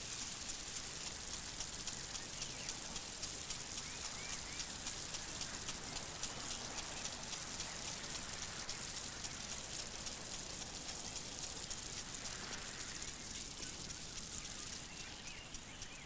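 Garden sprinkler water falling on shrub leaves: a steady hiss of spray with many small droplet pats.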